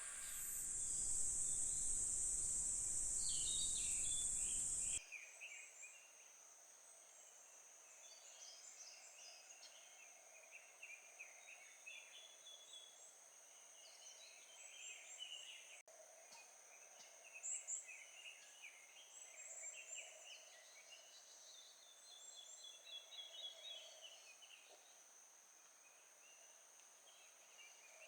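Outdoor summer ambience of insects: a steady high-pitched insect drone with scattered chirping calls. A louder rushing noise fills the first five seconds and cuts off abruptly.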